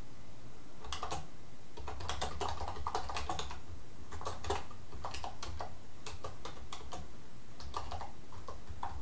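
Typing on a computer keyboard: irregular runs of keystroke clicks broken by short pauses.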